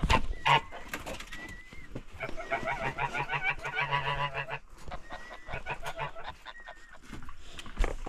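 Domestic geese calling: a fast run of wavering cackles lasting about two seconds, with a few short thin high notes before and after.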